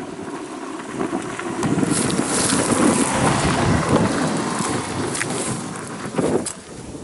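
Strong wind gusting across the microphone, a loud rushing rumble that swells through the middle and eases toward the end, with a brief louder buffet about six seconds in.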